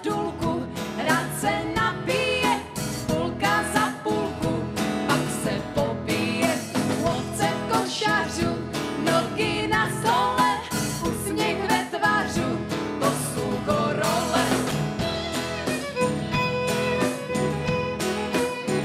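Live folk band music: fiddles over double bass, with women singing a slow Silesian goral pair-dance song.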